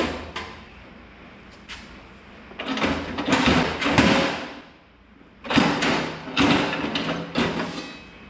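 Metal parts of a Craftsman radial arm saw being worked apart by hand: a few light clicks, then two longer stretches of sliding, scraping and knocking as the motor carriage and arm are shifted and lifted off the column.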